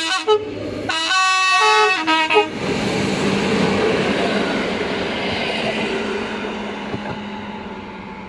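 Class 060-EA (LE 5100 kW) electric locomotive sounding its horn, a short blast and then a longer one of about a second and a half, as it approaches. The locomotive and its passenger coaches then pass close by with a loud rushing noise that fades away near the end.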